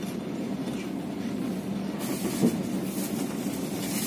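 Passenger train running, heard from inside the carriage: a steady rumble of the wheels on the track with a low hum, and a hissing that grows louder about halfway through.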